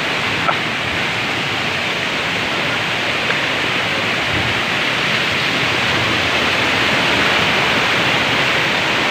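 Waterfall cascading over rock ledges: a steady rush of falling water that grows a little louder near the end.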